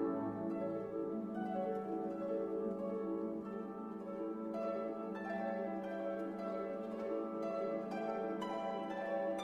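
Instrumental background music: plucked-string notes, harp or pizzicato, over a held low note.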